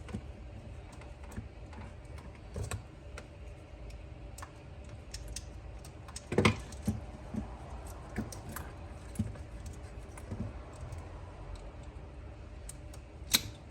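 Irregular light clicks and knocks of plastic steering-wheel trim and wiring connectors being handled and unplugged, with a sharper click about midway and another near the end, over a low steady hum.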